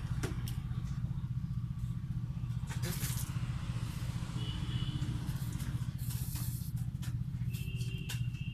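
A steady low hum under a few short rustles and scrapes: needle and thread being pulled through a braided jute-rope sandal.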